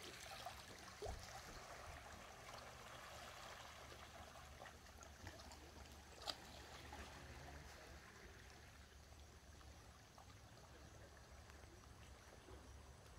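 Faint running water, a steady soft hiss, with a couple of small clicks about one and six seconds in.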